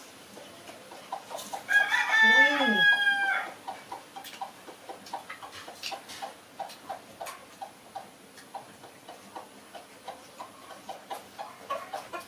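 A rooster crows once, about two seconds in, for nearly two seconds, ending on a falling note. After it comes a long run of soft, short ticks, about three a second.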